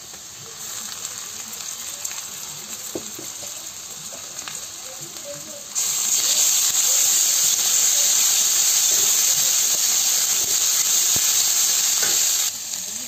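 Ground spice pastes, chilli powder and onion sizzling as they fry in hot oil in a metal karahi, stirred with a spatula that taps the pan a few times. The sizzle jumps much louder about six seconds in and drops back shortly before the end.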